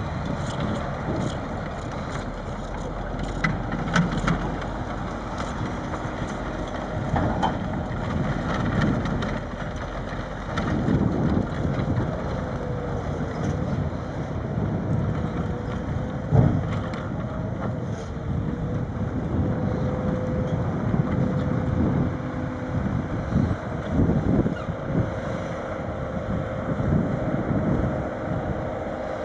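Heavy diesel engines running in a truck-loading yard, with wind buffeting the microphone. A steady whine sets in about halfway through and holds to the end.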